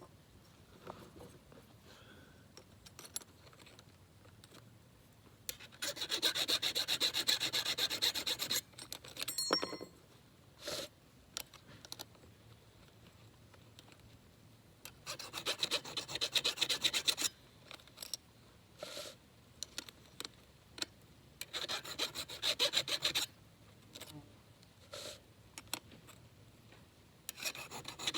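Hand file sharpening the cutters of a 32-inch Husqvarna X-Cut saw chain: three runs of quick rasping file strokes, each two to three seconds long, with another run starting near the end. Between the runs are quiet stretches with light clicks and taps as the file is lifted and the chain is moved on.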